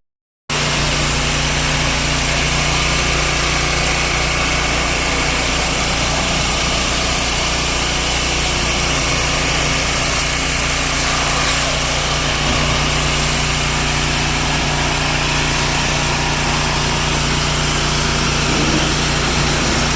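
Gas-engine pressure washer running steadily: an even engine drone under a constant spray hiss. It starts and stops abruptly at edits.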